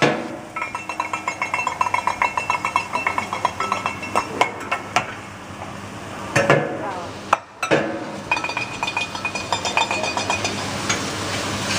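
Metal spatulas tapped rhythmically against a steel teppanyaki griddle: quick ringing clinks, several a second, in two runs with a short break in the middle.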